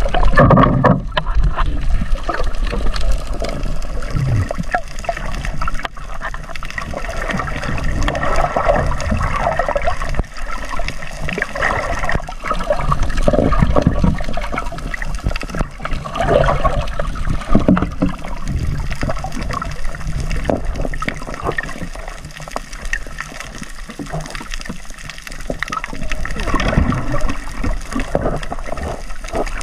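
Water sloshing and gurgling around a camera held underwater, with a muffled, uneven rushing as it moves through the water near the surface.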